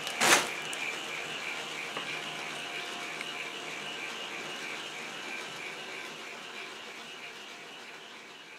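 A plastic bag of small K'Nex connectors crinkling and rattling briefly as it is set down, a moment in. After it only a steady faint background with a light regular pulsing, fading out toward the end.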